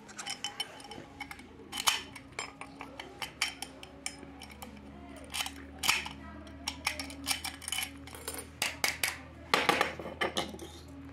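Steel padlock and its keys being handled, making a string of sharp metallic clicks and clinks, with a louder clatter near the end as the lock is set down on a concrete floor. A steady low hum runs underneath.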